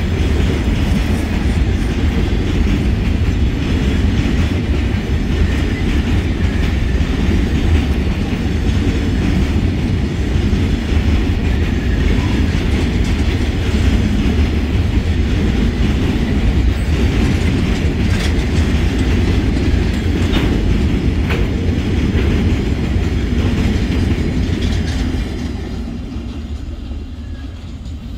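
Open freight wagons of a long train rolling past close by, a steady loud rumble of steel wheels on the rails. It fades about 25 seconds in as the last wagon goes by and moves away.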